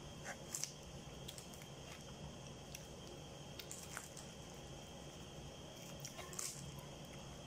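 Mukbang eating and food-handling noises: a few short, soft crackles and clicks from chewing and from plastic-gloved hands picking food out of a plastic-covered tray. They come in small clusters about half a second in, around four seconds, and near six and a half seconds, over a faint steady hiss.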